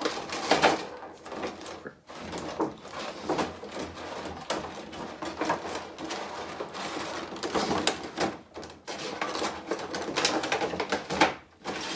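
A thin clear plastic protector box and a plastic mold tray crinkling, crackling and scraping, with many quick irregular clicks, as a figure in the mold is forced into the flimsy protector.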